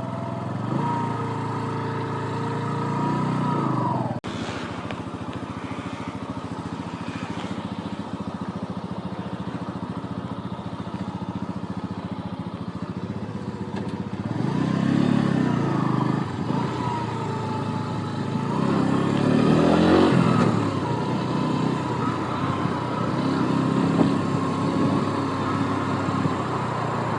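Bajaj Boxer BM 125 X's single-cylinder four-stroke engine running while riding, its pitch and loudness rising and falling with the throttle. There is an abrupt break about four seconds in, and louder pulls a little past the middle.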